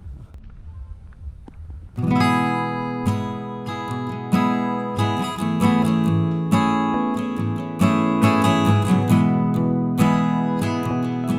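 Background music of strummed acoustic guitar, starting suddenly about two seconds in, after a quiet low engine rumble.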